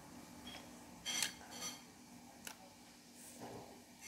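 Faint mouth sounds of someone eating a piece of white chocolate: a few short, crackly smacks and clicks, the loudest about a second in.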